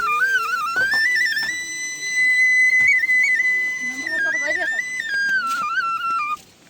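Background music: a flute melody with trills and turns, holding one long high note in the middle and trailing off shortly before the end.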